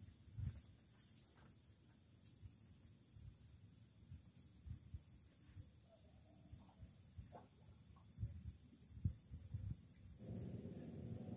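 Faint insects chirping in a high, evenly pulsing rhythm, with a few soft knocks; a low rushing noise comes in near the end.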